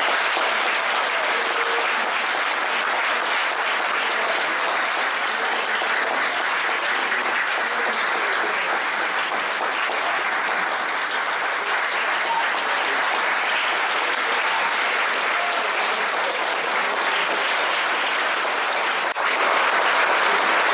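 A large audience applauding steadily in a standing ovation, a little louder near the end.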